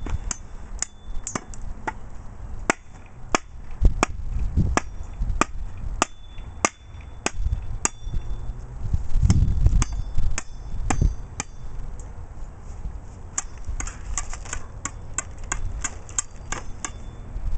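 Cold Steel Latin machete chopping into a wooden branch: a run of sharp chops about one or two a second, coming faster and closer together near the end.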